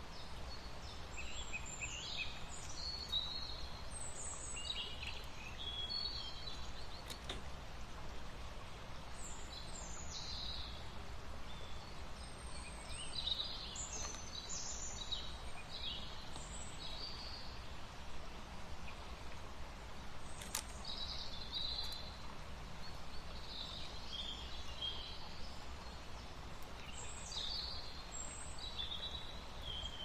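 Small birds chirping in short, high calls scattered throughout, over a steady low outdoor rumble.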